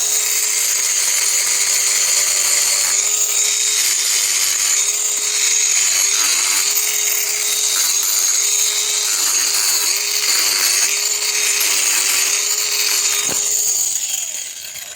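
Cordless mini angle grinder with a hoof-trimming disc running at speed, grinding down a miniature horse's overgrown hoof. Its steady high whine dips in pitch several times as the disc bites into the hoof, then winds down near the end.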